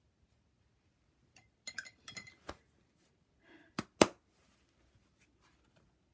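Small clinks and clicks of paint tools and a plastic Masterson Sta-Wet Handy Palette being handled, then two sharp knocks about four seconds in, the second the loudest, as the palette's plastic lid is picked up to close the tray.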